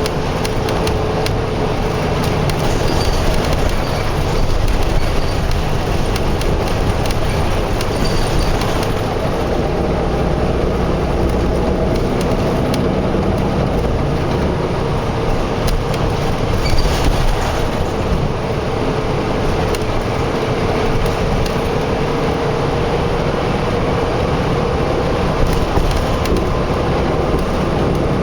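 Steady highway traffic noise with a faint hum and scattered light clicks.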